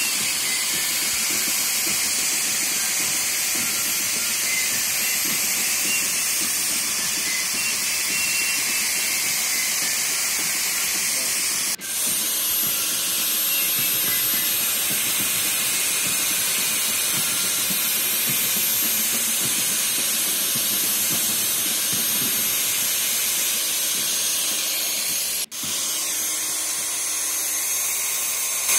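Angle grinder running with its abrasive disc grinding the edge of an RC car chassis plate, a steady high hiss. The sound drops out for an instant twice.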